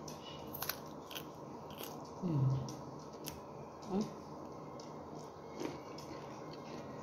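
Crunchy bites and chewing of a broccoli stalk, with several sharp crisp snaps in the first few seconds. The loudest sound is a short falling hum of the voice about two seconds in, with two smaller ones later.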